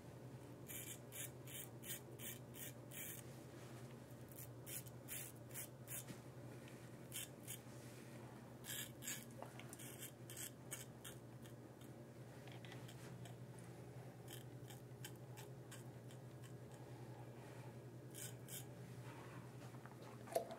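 Rockwell R1 butterfly double-edge safety razor scraping through lathered beard stubble in short strokes, a crisp rasp with each pass. The strokes come in runs of several, about two a second, with pauses between, over a faint steady hum.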